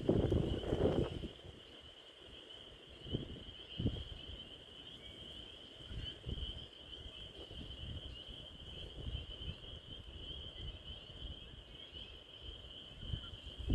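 Chorus of spring peepers: a steady, dense high-pitched peeping of many frogs calling together. Low rumbles sit underneath, strongest in the first second and again near the end.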